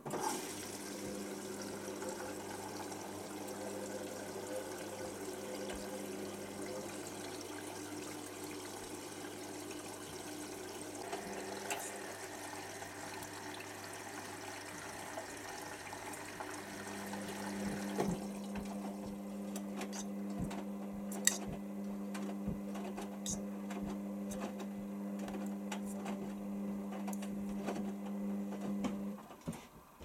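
Hotpoint Aquarius WML540 washing machine on its final rinse: water runs in while the drum turns the wet load, with a steady low hum. About 18 seconds in the inflow and part of the hum stop, and the drum keeps tumbling with light clicks and sloshing until it stops near the end.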